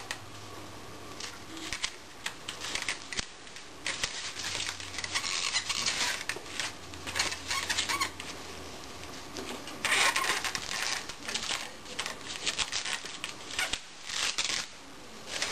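Handling noise from a ball-jointed doll being moved and posed on a satin cloth: irregular light clicks and taps mixed with fabric rustling, busiest in the middle and again about ten seconds in.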